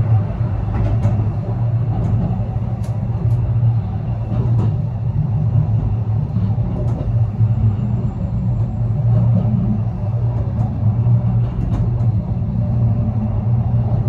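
Steady low rumble of a running vehicle, with a few faint clicks over it.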